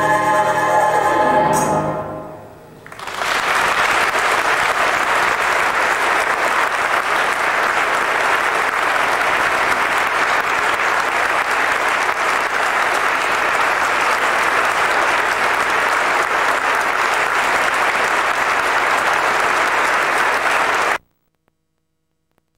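A youth choir holds its final chord, which cuts off about two seconds in. After a brief hush, audience applause starts and runs steadily, then stops abruptly near the end.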